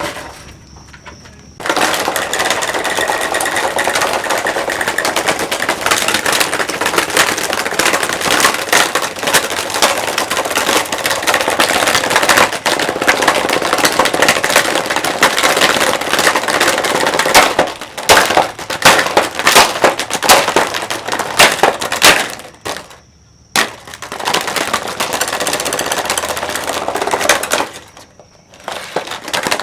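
Comfort Zone 12-inch oscillating table fan being broken apart: a long, dense run of rapid cracking, clattering and crunching, with two brief pauses near the end.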